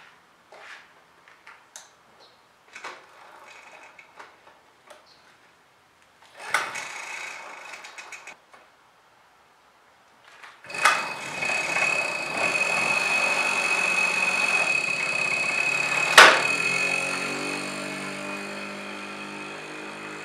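Footsteps and small knocks, a short rattle, then the 1978 Garelli moped's 50cc two-stroke single-cylinder engine starts about eleven seconds in and runs steadily with a high, buzzy tone. There is one sharp click about five seconds after it starts, and then the engine fades away as the moped rides off.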